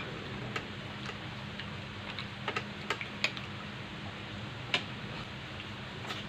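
A metal spoon clicking and scraping against a glass baking dish while fish is served out of it: scattered, irregular sharp clicks, several close together in the middle, over a steady low hum.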